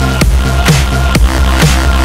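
Electronic dance music with heavy bass and a steady beat, about two beats a second.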